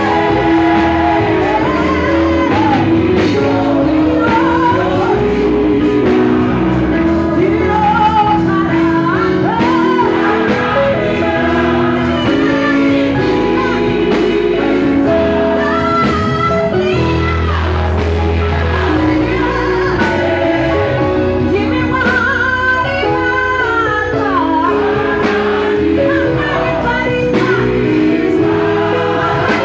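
Gospel praise team singing into microphones, a woman's voice leading, over instrumental backing music.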